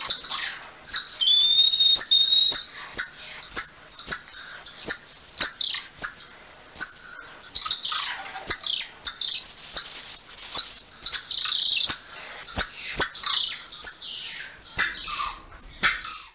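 Golden lion tamarin calls: a quick run of high-pitched chirps and sharp clicks, with two held whistles, one about two seconds in and one about ten seconds in.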